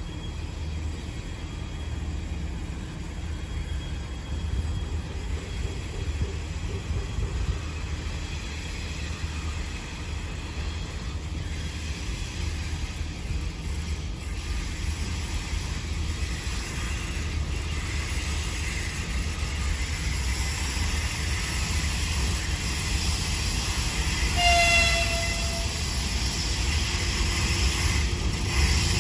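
2ES4K two-section electric freight locomotive approaching with its freight train, a low rumble that slowly grows louder. About three-quarters of the way through it gives one short toot of its horn, and near the end the rush and rumble of the train rises as it draws close.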